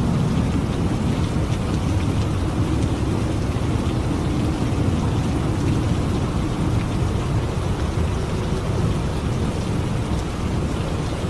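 Steady rain of a thunderstorm, with a low rumble of thunder underneath.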